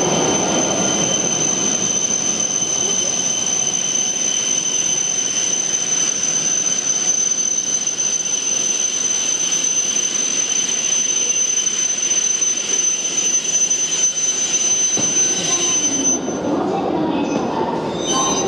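W7 series Shinkansen train pulling away, its running rumble fading over the first couple of seconds, over a steady high whine that cuts off suddenly about sixteen seconds in.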